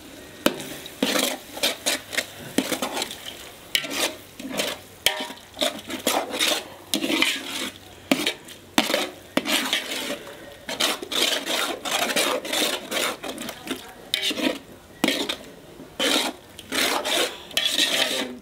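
A perforated metal ladle scraping and knocking against the sides and bottom of a large metal pot in quick, irregular strokes, stirring garlic paste into a thick tomato masala, with a faint sizzle between strokes.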